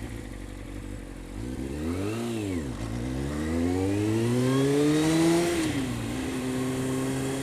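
Motorcycle engine pulling away: a quick rise and fall in revs about two seconds in, then a long climb in revs, a drop as it changes up a little past halfway, and steady running after.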